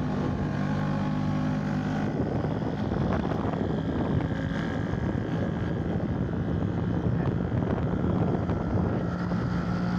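Small single-cylinder two-wheeler engine running steadily under way on a hill road, with wind and road noise over it. The engine note shifts about two seconds in.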